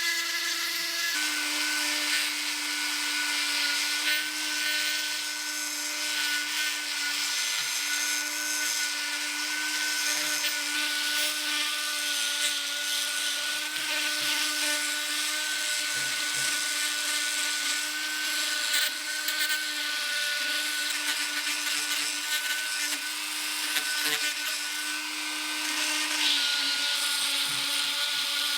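Small electric power tool running steadily, its motor hum dropping slightly in pitch about a second in as it takes load, with a steady high hiss over it.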